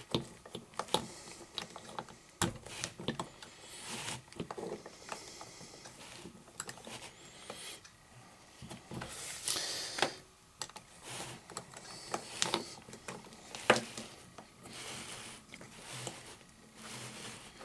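Plastic construction-toy parts clicking and knocking as hands handle spools and figures on a pegboard: a string of irregular light clicks.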